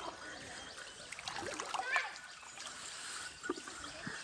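Quiet splashing and trickling of pond water as someone moves in it, with a few soft splashes, the clearest about two seconds in and again near the end.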